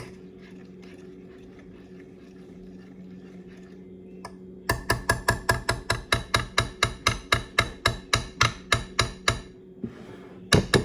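A spoon beating a mixture in a bowl, knocking the bowl's side in a fast, even rhythm of about five strokes a second, starting about halfway through, pausing briefly and starting again near the end. A steady low hum runs underneath.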